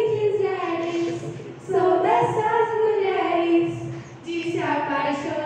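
Girls singing a melody in long held notes, the phrases broken by two short pauses.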